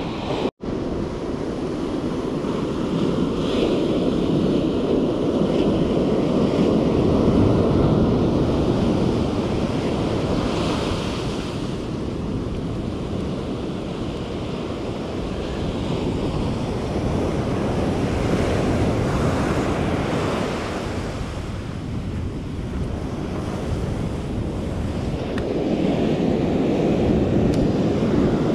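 Ocean surf breaking and washing up the sand, a steady wash that swells and eases every several seconds as each wave comes in. It cuts out for a moment about half a second in.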